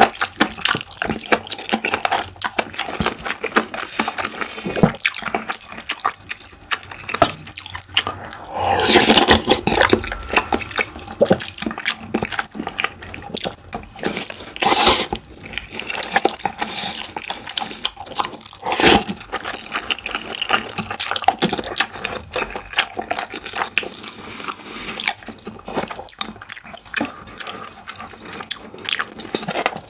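Close-miked eating sounds: wet chewing and lip smacks, with one longer, louder slurp about nine seconds in.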